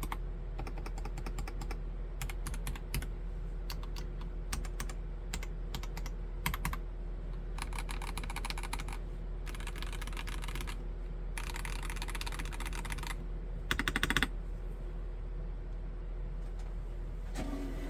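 Typing on a Nori Spring Rider Black mechanical keyboard with Gateron Yellow Pro V2 linear switches: scattered keystrokes at first, then several fast runs of rapid typing, the loudest a short burst about 14 seconds in, after which the typing pauses.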